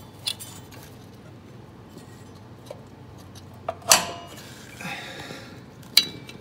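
Metal clinks and knocks from hands working the mower's PTO clutch bracket back into place, a few separate sharp clinks with short ringing, the loudest about four seconds in and another near the end, with a brief scrape in between, over a steady low hum.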